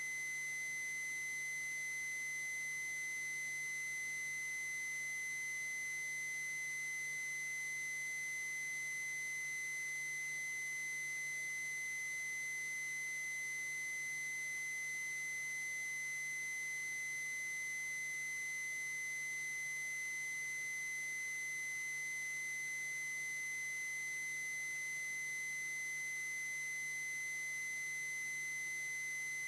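A steady, unchanging high-pitched electronic tone over faint hiss and low hum, carried on a two-way radio feed between transmissions.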